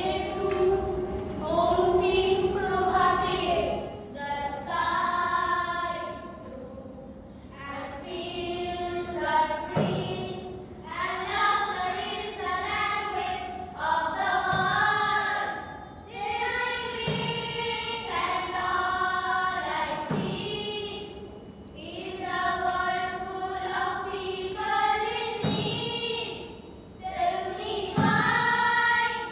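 A group of children singing together in chorus, in long held sung phrases, with an occasional low thud.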